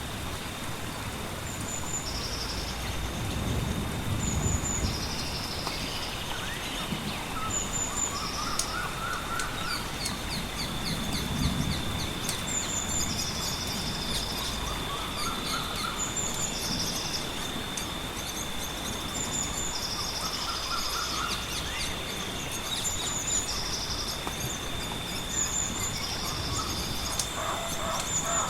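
Layered nature ambience: a bird calls over and over, every second or two, above a steady rush of rain and running water, with fire crackling and two low rumbles of thunder, the first about four seconds in and the second about twelve seconds in. A thin steady high tone runs underneath.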